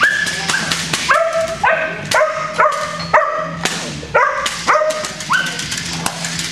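A 10-week-old puppy in harness, held back on the leash and lunging toward a tug, barks in a string of about nine high-pitched yips, each starting with a quick upward yelp. It is frustration barking while restrained, as happens in early bite-work drive building.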